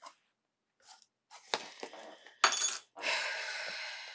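Small cardboard shipping box being opened by hand: scattered scrapes and clicks of the flaps, then a short loud rasp about two and a half seconds in, followed by a ringing tone that slowly fades.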